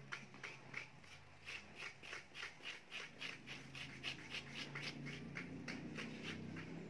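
Metal spoon scraping the flesh out of a halved green banana's peel in quick, even strokes, about three to four a second, over a faint low hum.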